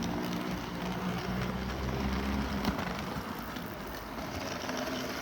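Model train locomotive running on the layout with a steady motor hum. A deeper hum cuts off with a click about two and a half seconds in. The owner recognises the sound as the train running on the ground again.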